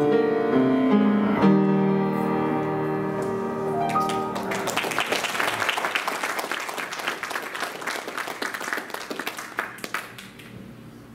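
Piano playing the closing chords of a gospel song, then a congregation applauding for about five seconds, the clapping dying away near the end.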